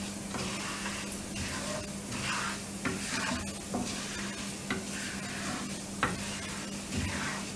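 Fenugreek seeds sizzling in hot mustard oil in a non-stick frying pan, still hot with the burner just turned off. A wooden spatula stirs them in repeated scraping strokes and knocks against the pan a few times.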